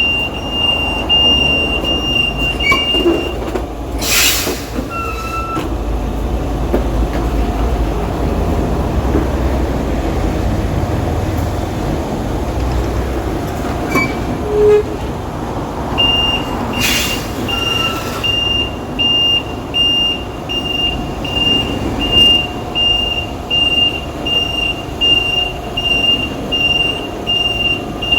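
Semi-trailer truck's reversing alarm beeping in a high-pitched tone, stopping a few seconds in and starting again about halfway through, over the low rumble of the truck's diesel engine. Two short hisses of air are heard, one about four seconds in and one about seventeen seconds in.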